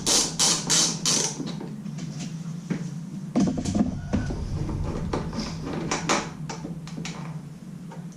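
Ratchet wrench undoing a 10 mm dome nut: a quick run of even clicking strokes, about three a second, that stops about a second in, followed by scattered light metal clicks and taps.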